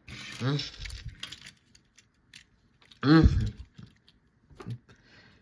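Light clicks and taps of small die-cast toy cars being handled and set down, with a short vocal sound, like a hum, about three seconds in.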